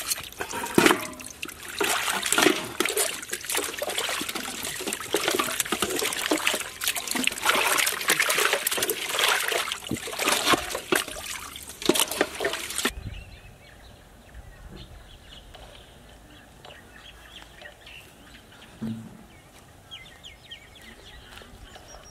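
Hands sloshing raw chicken legs in a steel basin of water: a dense run of splashes and trickles that stops abruptly about thirteen seconds in. After that, a much quieter background with a few faint high chirps.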